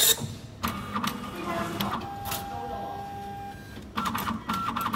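Hitachi automatic passbook printer working: clusters of mechanical clicks and whirring from its feed and print mechanism, with a steady held tone lasting over a second about two seconds in.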